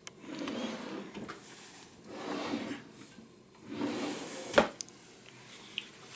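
Dresser drawers sliding open and shut on their runners a few times, the last one shutting with a sharp knock about four and a half seconds in.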